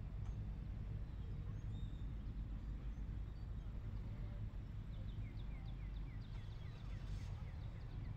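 Outdoor ambience with a steady low rumble. In the second half a bird calls a quick run of short, descending chirps, about five a second, which stops near the end.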